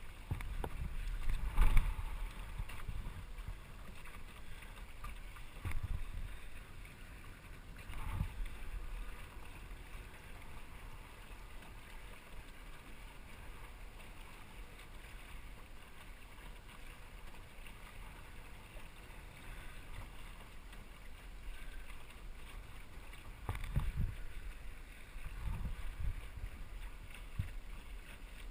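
Small sailboat under sail: water washing along the hull with a steady low wind rumble on the microphone, broken by a few louder low thumps.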